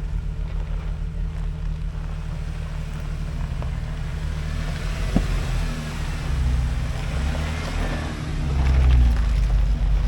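Jeep engine running as it drives a dirt forest road, a steady low rumble with tyre and road noise. A brief knock comes about five seconds in, and the rumble swells louder near the end.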